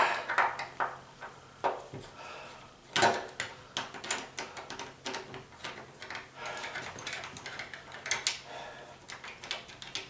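A brass deadbolt being unscrewed and worked loose by hand: a run of metal clicks, scrapes and small rattles, with a louder knock about three seconds in.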